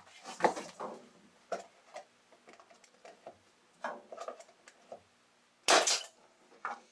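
Pneumatic staple gun working on a thin wooden fascia strip: sharp knocks and clicks of the gun and wood, then about six seconds in a louder short burst with a rush of air as it fires a staple into the wood.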